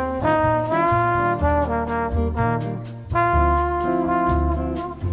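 Background music: a jazzy tune with a lead of long held notes over a bass line and a steady beat.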